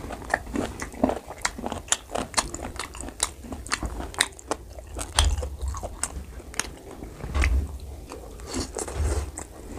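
Close-miked eating of spicy pork curry and rice by hand: biting and chewing pork, with wet mouth clicks and smacks several times a second and a few dull low thumps.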